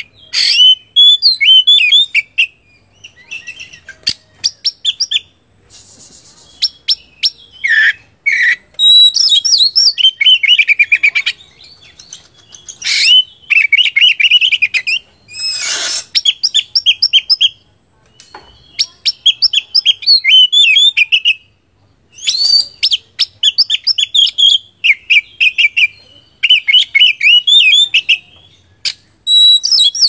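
Oriental magpie-robin (kacer) singing: loud, repeated phrases of quick whistled notes in short runs with brief pauses between them, broken now and then by a harsh, scratchy note.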